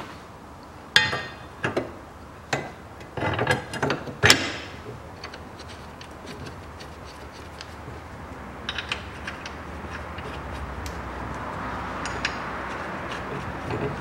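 A steel transverse brace being fitted to a Mazda 6's subframe: a run of sharp metal clanks and knocks as it is set against its mounts, then a few light ticks later on.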